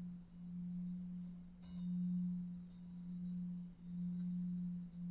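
Low, steady pure drone tone from a meditation soundtrack, swelling and fading about once a second in a slow pulse. There is a faint tick about a third of the way in.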